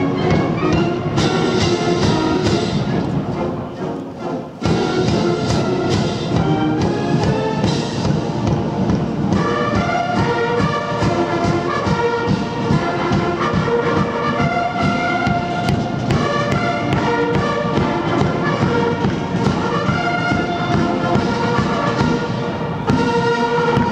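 Massed military band of bugles, brass and drums playing a march on the move, over a steady drumbeat. The music dips briefly about four seconds in, then the bugles and brass carry clear held notes.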